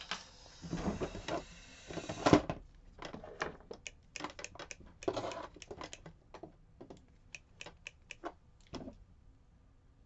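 Small hard clicks, taps and handling noises from a Miwa DS lock and tools as it is taken apart, with one louder knock about two seconds in; the clicking stops near the end.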